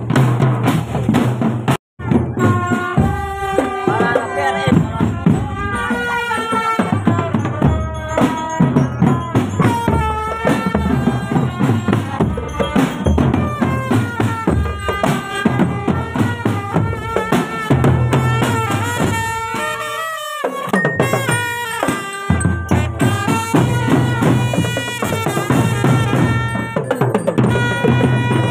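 Indonesian marching drum band (drumband) playing: fast, dense drum strokes with bass drum under a melody line. The sound cuts out for an instant about two seconds in, and the low drums drop out briefly near twenty seconds in while the melody carries on.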